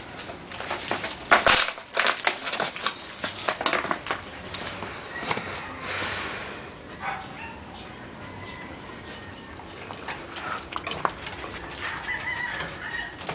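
A dog eating from a stainless steel bowl. A run of sharp clicks and crunches comes in the first few seconds, then it goes quieter.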